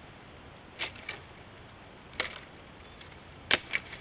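Slow footsteps crunching on dry leaf litter and twigs in a wood: three pairs of short crackles, about a second and a third apart, the last pair the loudest.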